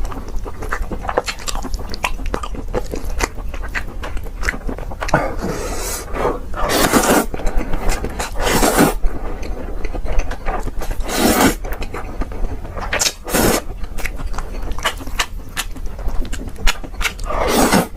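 Close-miked mukbang eating sounds: chewing and mouth clicks, with several louder crunching bursts over a steady low hum.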